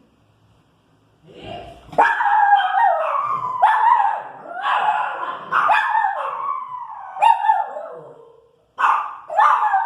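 A Pinscher dog barking and howling in a run of drawn-out yelping calls, each sliding down in pitch, starting about a second in with a short break near the end. It is irritated by noise from the street.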